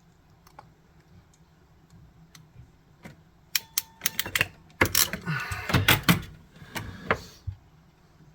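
Small sharp clicks and scraping of a crimped metal terminal and a plastic Molex-style connector housing being handled, as a crooked pin is straightened and seated. A few faint ticks come first, then a quick run of clicks and scraping about halfway through, which is the loudest part.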